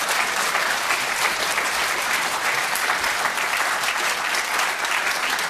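Studio audience applauding: many people clapping at once in a dense, steady patter.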